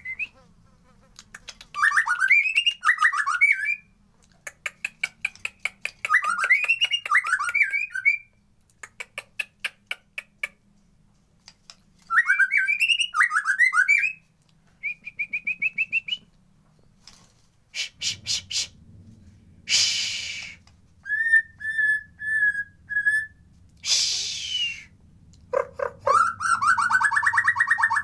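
White-rumped shama (murai batu) singing a varied song: looping whistled phrases, fast rattling chip series and short trills, in bursts with brief pauses between them, with a few harsh rasping notes in the second half.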